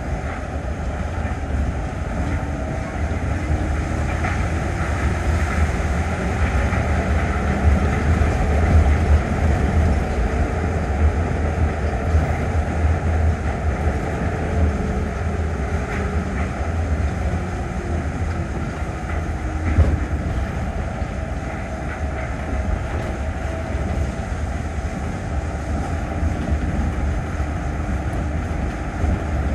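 Running noise heard inside an Osaka Metro New Tram 200 series car, a rubber-tyred automated guideway train, travelling at speed. There is a steady low rumble with a faint whine that drifts up and down in pitch.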